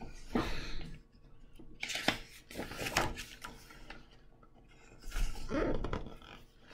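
Pages of a picture book being turned and the book handled: paper rustling and soft knocks in a few separate bursts.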